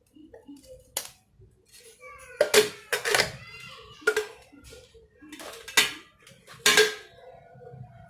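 Stainless steel mixer-grinder jars and lids being handled, knocking and clinking together in about half a dozen sharp clanks, some with a brief metallic ring.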